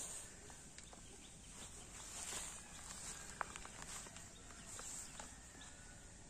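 Faint rustling of a sheet of paper being unfolded and handled, with a few light ticks, the sharpest about three and a half seconds in.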